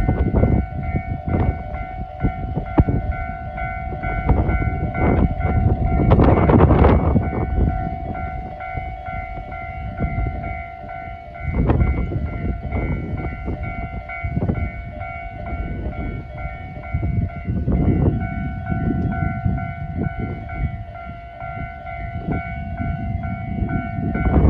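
Japanese railway level-crossing warning alarm ringing steadily while a train passes. The rumble and repeated clacks of its wheels over the rail joints swell and fade several times.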